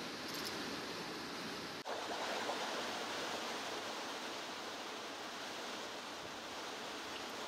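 Rushing creek water: a steady, even hiss of white water, with a short dip in level about two seconds in.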